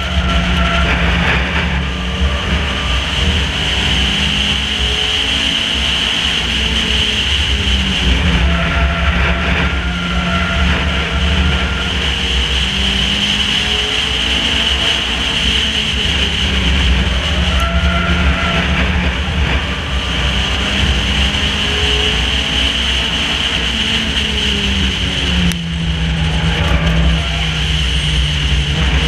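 Race car engine heard onboard at racing speed, loud and continuous. Its pitch holds high on the straights and dips into each turn in a repeating cycle every eight or nine seconds.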